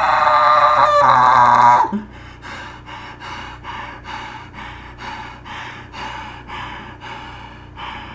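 A cartoon girl's loud, shrill scream that cuts off suddenly about two seconds in, followed by quick panting breaths, about two a second.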